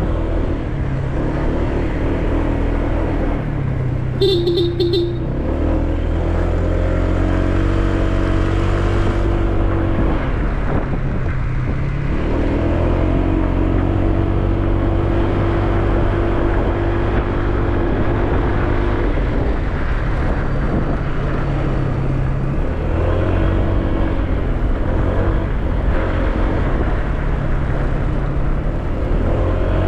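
Motorcycle engine running while riding, its pitch rising and falling with throttle and gear changes. A short horn toot sounds about four seconds in.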